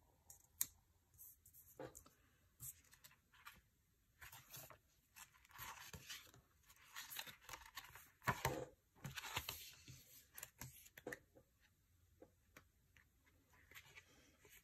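Faint, irregular rustling and scraping of paper as stickers are peeled from their sheets and pressed onto planner pages. The loudest rustles come about eight to ten seconds in.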